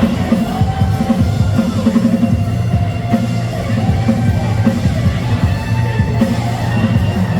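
Rock music instrumental passage with no singing: a drum kit and bass carry a steady beat under sustained guitar.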